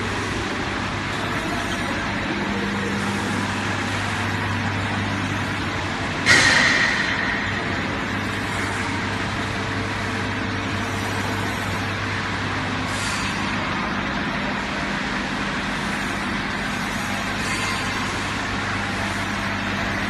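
Vertical ultrasonic vial washing machine running steadily, a constant mechanical din over a low hum. About six seconds in comes a sudden loud hiss that fades over about a second, with fainter hisses later on.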